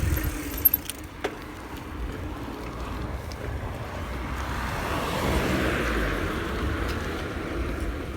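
Street traffic heard from a moving bicycle: a steady low rumble, with a vehicle's noise swelling to a peak a little past the middle and fading again.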